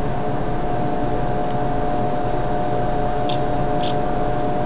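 Steady electrical hum with hiss, holding two constant tones, and a couple of faint short clicks about three and a half seconds in.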